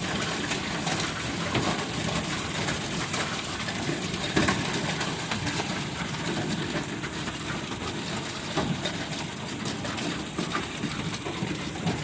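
Hailstones pelting a car with rain, heard from inside the car: a dense, steady patter of sharp ticks and clicks over a rushing hiss.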